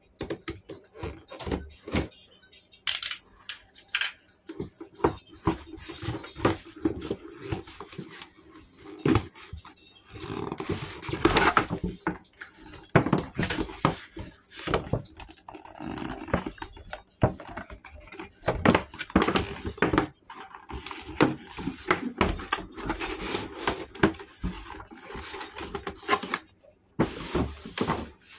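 Cardboard toy box and its plastic packaging being handled and opened: irregular rustling, scraping and sharp clicks.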